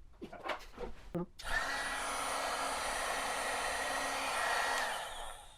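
Heat gun blowing steadily while shrinking heat-shrink tubing over a wiring connection. It starts about one and a half seconds in and dies away near the end, after a few brief murmurs of voice.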